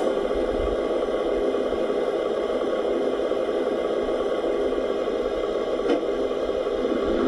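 Radio-controlled construction model running steadily, an even mechanical hum made of many fixed tones, with a faint click about six seconds in.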